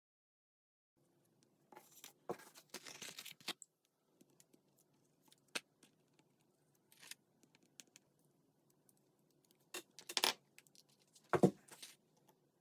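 Paper and cardstock being handled: short rustles and light clicks, then a couple of sharper knocks and a heavier thump near the end.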